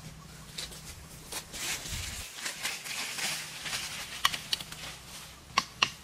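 Leaves and brush rustling as a person pushes on foot through dense undergrowth, with a few sharp snaps near the end.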